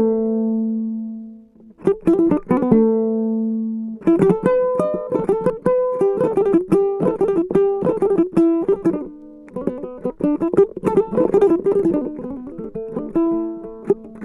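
Several West African gourd-bodied lutes being plucked. An opening note rings out and fades away, a few plucks follow, and from about four seconds in the lutes play a fast, continuous plucked melody together.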